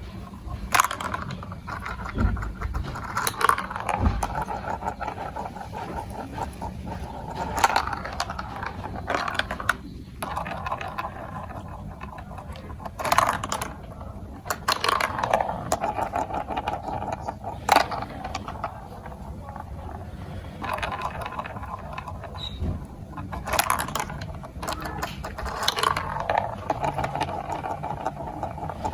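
Marbles rolling and rattling through a plastic marble run, with frequent sharp clicks as marbles and plastic pieces knock together.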